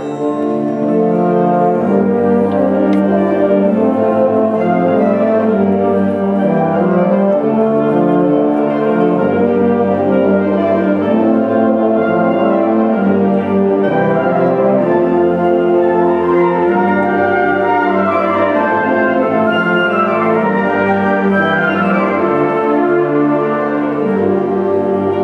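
Symphonic wind band playing, with woodwinds and brass together in full, sustained chords and the brass prominent.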